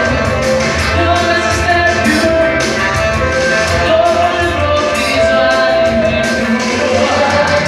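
Live pop band playing an upbeat song on keyboards, electric bass and drums with a steady beat, a woman singing lead over it.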